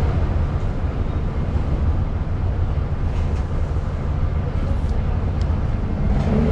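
Steady low rumble of city street traffic, with a few faint light clicks.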